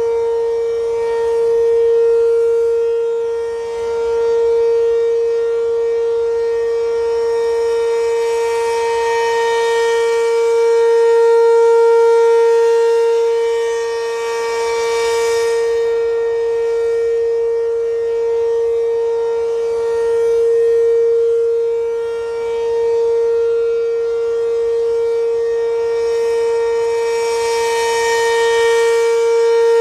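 ACA P-15 civil-defence siren sounding a steady alert tone at one unchanging pitch. The sound swells and fades about every nine seconds as the rotating horn sweeps past.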